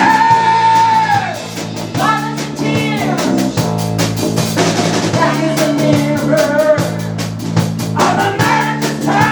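Rock band playing: a singer's voice over guitar and drums, with evenly spaced drum and cymbal hits keeping a steady beat.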